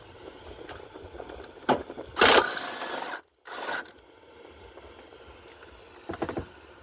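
Snap-on 1/2-inch impact wrench firing in one loud burst about two seconds in, lasting about a second, as it breaks loose an engine mount bolt. A sharp click comes just before it, and a few more tool clicks come near the end.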